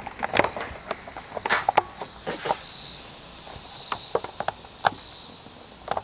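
Scattered soft knocks and rustles of people shifting about on a hard floor, with no voices.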